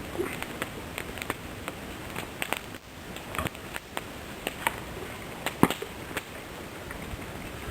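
Campfire of damp wood crackling and spitting: irregular sharp pops, several a second, over a steady faint hiss. The spitting comes from the damp wood.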